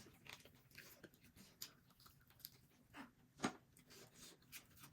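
Faint chewing and mouth sounds of someone eating, with scattered small clicks, the loudest about three and a half seconds in.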